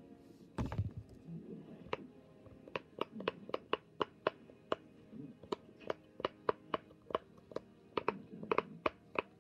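Silicone pop-it fidget toy being popped bubble by bubble: a long run of short, sharp pops, a few each second, after a handling thump about half a second in.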